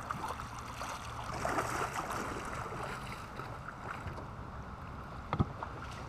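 Shallow river water sloshing and splashing against a kayak hull and around a person wading beside it. A single sharp knock about five seconds in.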